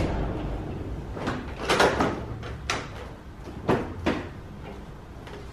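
Cadillac STS plastic front bumper cover knocking and clicking as it is pushed up and fitted into place: a short low rumble, then a series of sharp knocks, loudest about two seconds in and again near four seconds.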